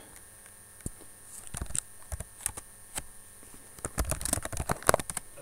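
Computer keyboard being typed on: scattered key clicks in two short runs, about a second and a half in and again about four seconds in.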